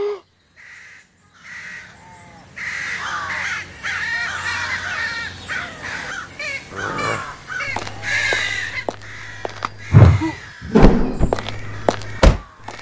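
Crows cawing, many short calls overlapping. Near the end come a few heavy thumps over a low steady hum.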